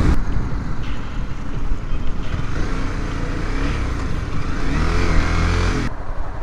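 Honda 250 sport bike's engine and heavy wind rush on a helmet-mounted microphone as the bike slows down and pulls over. The engine note rises and falls with throttle in the second half, and the wind rush drops away sharply near the end as the bike comes to a near stop.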